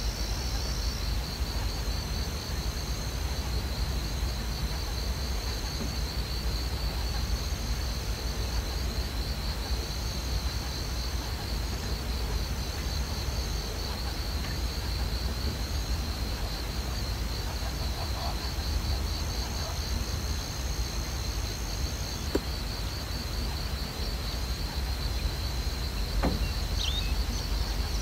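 Insects chirring without a break in one high, fast-pulsing trill, with a second, higher trill starting and stopping, over a steady low rumble. A couple of faint clicks come near the end.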